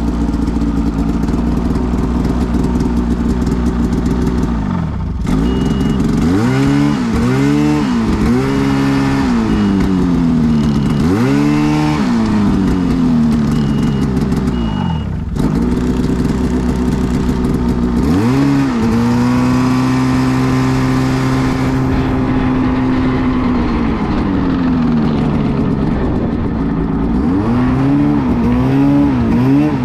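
Snowmobile engine revving up and down repeatedly under throttle, with steady stretches at high revs.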